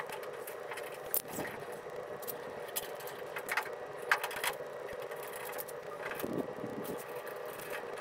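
Scattered light clicks and taps of small metal latch parts being handled and fitted at the latch of an upturned VW Beetle front hood, over a steady background hum.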